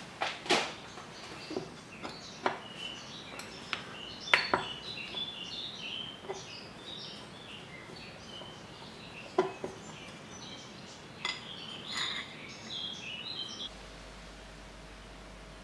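A screwdriver clinking against the drain plug at the bottom of a Tohatsu M50D2 outboard's lower-unit gear case as the plug is worked loose: scattered sharp metallic clicks with gaps between them.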